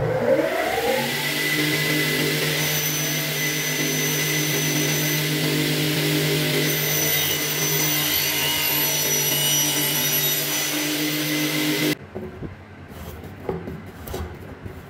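Motor of a large hooded circular saw spinning up, then running at a steady pitch. It stops abruptly about twelve seconds in, giving way to quieter, uneven scraping of a hand tool worked into a crack in the willow of a cricket bat.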